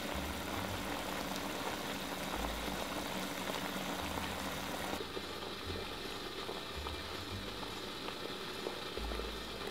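Chicken feet simmering in a thick braising sauce in a pot: a steady patter of small bubbles popping. About halfway through the sound turns quieter and duller.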